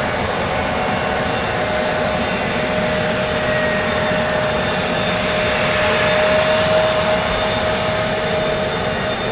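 Boeing 757-200's twin jet engines idling with the aircraft standing still: a steady rush with a constant whine. The sound swells slightly about two-thirds of the way through.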